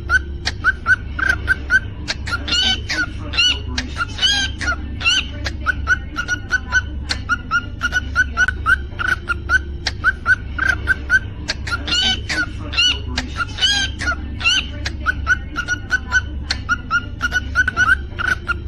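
Cockatiel chirping rapidly and continuously, with louder whistled calls that bend in pitch breaking in around three seconds in and again around twelve to fourteen seconds in. A steady low hum sits underneath.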